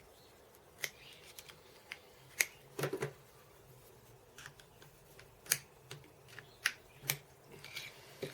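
Irregular light clicks and taps, about a dozen, from small hand tools and metal parts being picked up and set down while marking out a workpiece.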